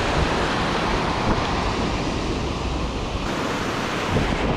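Ocean surf breaking and foamy water washing up the beach in a steady rush, with wind rumbling on the microphone.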